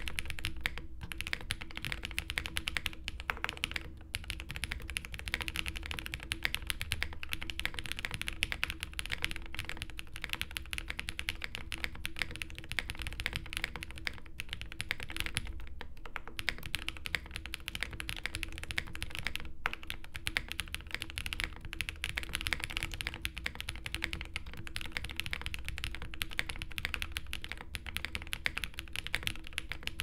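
Fast, continuous typing on a Zoom65 custom mechanical keyboard fitted with lubed Durock POM linear switches and GMK Redacted ABS keycaps, built with the tape mod and plate foam: a dense, even stream of key strikes.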